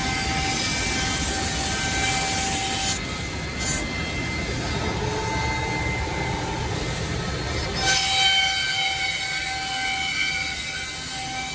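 Woodmaster 10-head CNC mortising machine running: its router spindles whine at several steady high pitches while the bits cut mortises into wooden rails. The hissing cutting noise fades about three seconds in and comes back louder about eight seconds in.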